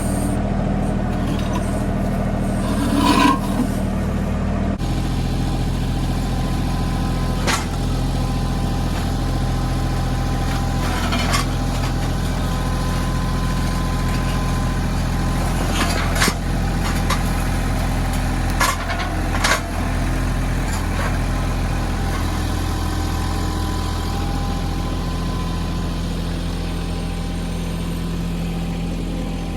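Mahindra 1626 compact tractor's diesel engine running steadily while it works the backhoe. Its note shifts abruptly about five seconds in. A handful of brief sharp knocks come through over the engine.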